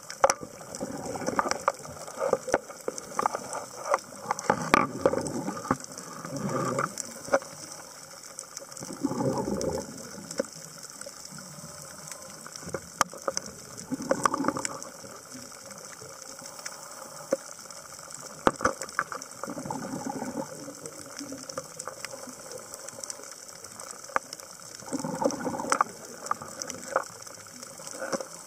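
Underwater recording of a scuba diver breathing: bubble bursts from the regulator about every five seconds, with scattered sharp clicks and crackles between the breaths.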